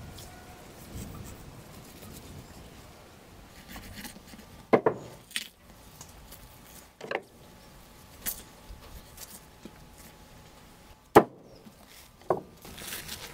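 A knife cutting and scraping through a raw lamb carcass, with about half a dozen sharp knocks of the knife and meat against the tabletop. The loudest knock comes near the end.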